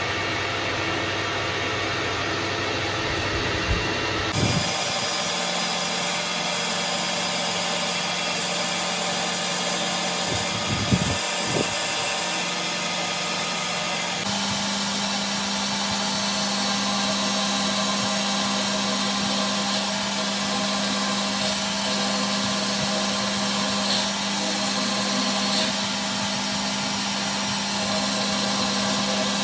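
Metal lathe running: a steady motor hum with machining noise, broken by a few brief knocks. The sound changes abruptly twice.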